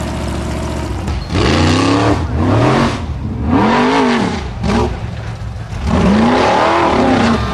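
Off-road racing buggy's engine running steadily at first, then from about a second in revved hard in four or five surges, its pitch swinging up and down with each blip of the throttle.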